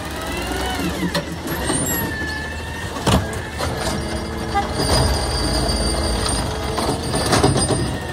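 Automated side-loader garbage truck at work: the diesel engine runs under a hydraulic whine that glides up and down as the lift arm moves, with a few sharp clunks as the arm grips a cart and starts lifting it.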